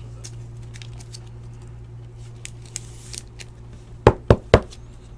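Trading cards and plastic card holders handled on a tabletop, with faint clicks and rustles. About four seconds in come three quick knocks, a rigid plastic top loader tapped against the table.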